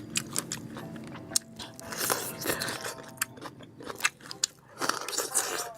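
Person chewing crunchy food close to the microphone, with many sharp, irregular crunches.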